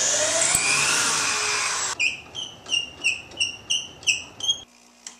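Power drill running steadily for about two seconds as it bores into a wooden block, its whine sliding in pitch with the load. A quick run of short high squeaks, about three a second, follows, then the sound stops abruptly near the end.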